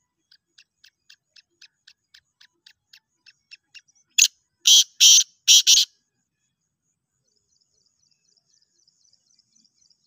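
Black francolin calling: a run of soft clicking notes, about four a second, that grows louder, then four or five loud, harsh call notes about halfway through. Faint, rapid high twittering follows near the end.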